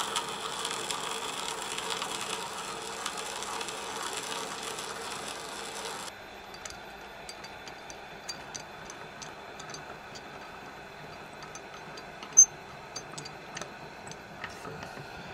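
Wood lathe turning slowly while an 11/16-inch spade bit in a tailstock drill chuck bores into the spinning magnolia blank. It is steady for about six seconds, then drops abruptly to a quieter hum with scattered light ticks and one sharper click near the end.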